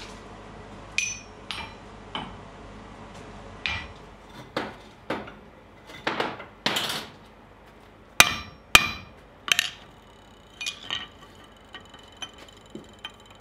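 Blacksmith's hammer striking steel: a dozen or so sharp metal blows and clinks at uneven intervals, the loudest a little past the middle. Near the end come lighter taps followed by a lingering high ring.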